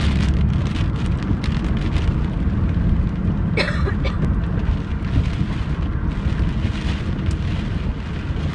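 Storm wind gusting against a moving car and the microphone in a deep, steady rumble, with heavy rain hissing on the vehicle. A brief high-pitched sound cuts through about three and a half seconds in.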